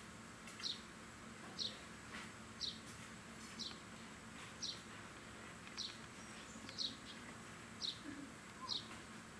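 A bird repeating a short, high, falling chirp about once a second, over faint steady outdoor background noise.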